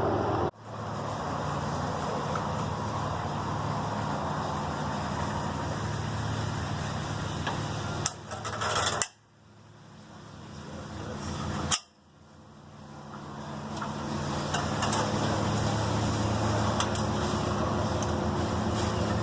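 A steady low machine drone, like an idling engine, with a few faint clicks about eight seconds in. The sound cuts out sharply three times and fades back in.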